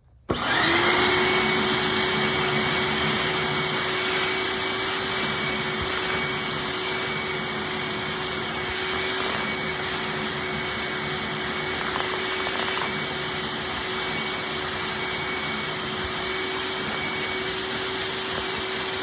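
Hoover wet/dry shop vac, said to have a central-vac motor, switching on and spinning up with a quickly rising whine. It then runs steadily at full speed, a rush of air with a steady high whine over it.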